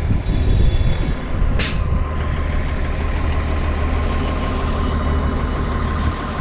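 City bus at a stop, its engine idling with a steady low hum, and a short hiss of released air from its air system about one and a half seconds in.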